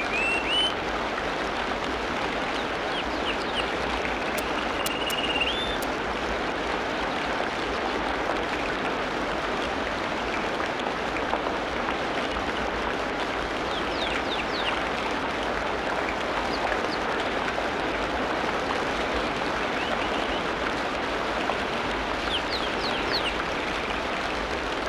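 Tropical rainforest ambience: a steady wash of water noise, with birds calling over it. Rising whistled notes come twice in the first six seconds, and bursts of quick high chirps come around the middle and again near the end.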